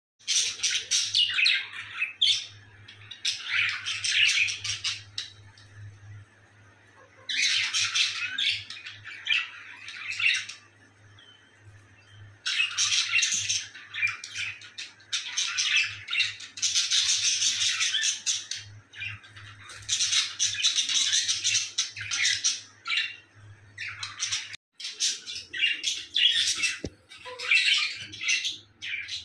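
Several pet budgerigars chattering and warbling, in spells of a few seconds broken by short pauses.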